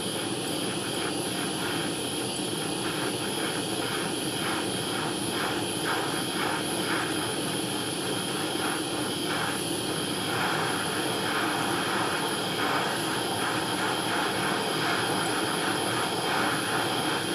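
Gas soldering torch burning with a steady rushing hiss, heating a ring's joint to flow hard solder paste.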